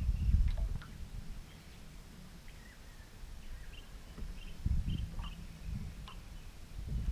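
Birds calling with short, faint chirps in the background, over two bouts of low rumble, one at the start and one about two-thirds of the way through.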